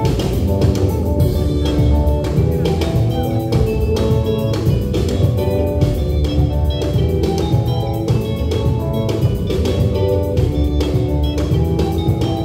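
Live gospel band music: drum kit and electric guitar playing with a steady beat.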